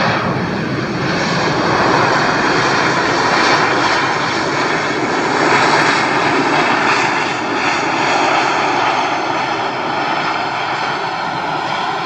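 Airbus A321-211 airliner's jet engines during its landing roll-out: a loud, steady rush of jet noise that swells about two seconds in and again near six seconds, then eases a little.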